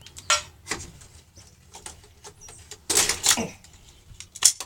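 Handling noise from pulling wiring out of a flat-screen TV for scrap: a handful of short clicks and rustles, the loudest near the end.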